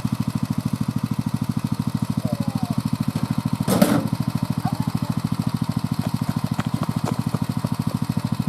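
Engine of a BCS 749E walk-behind tractor running at a steady, even putter. A short, loud rushing burst cuts through it about four seconds in.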